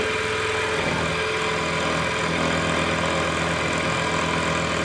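Manual milling machine running steadily, a new cutter taking a light clean-up pass along a slot in a motorcycle brake disc. Its even running tone shifts slightly about a second in.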